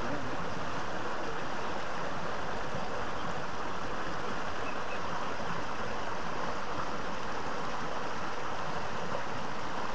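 Fast-flowing river water rushing, a steady even hiss.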